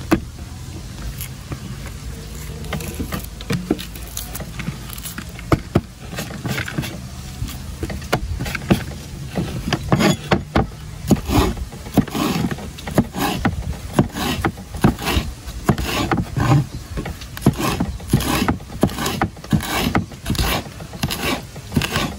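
Cleaver slicing a red bell pepper into strips on a wooden cutting board: a run of knife strokes knocking on the board, sparse at first and coming two or three a second in the second half, over a steady low hum.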